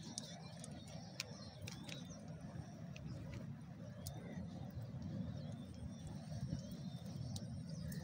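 Faint bird calls over a steady low outdoor rumble, with a few light clicks and rustles from hands working a wet cast net.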